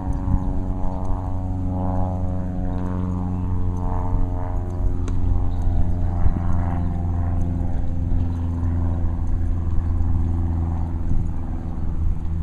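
A steady, low drone with many overtones, holding one pitch throughout, its upper overtones swelling and fading.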